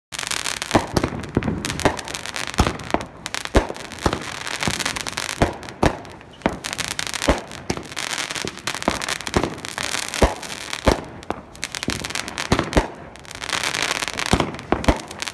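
Fireworks going off: an irregular run of sharp bangs, about one or two a second, over a steady hiss of burning and crackling.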